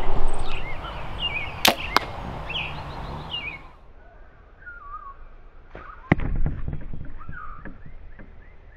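Compound bow shooting a heavy arrow into a block of ballistic gel: two sharp cracks about two seconds in, and another sharp crack with a low thud about six seconds in. Birds chirp throughout.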